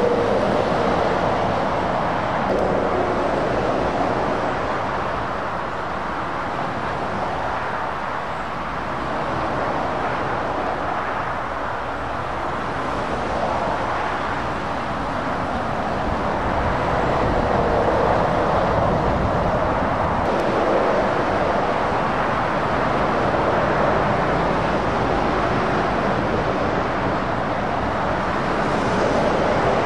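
Motorway traffic of lorries and cars passing, a continuous rush of tyre and engine noise that swells and fades as each heavy truck goes by.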